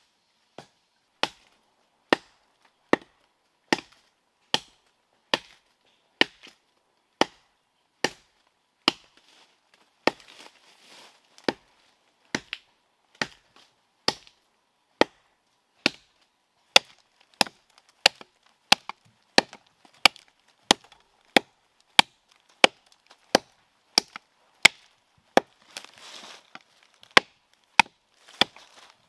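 Wood being chopped by hand: a long run of sharp, regular strokes a little under a second apart, coming faster in the second half.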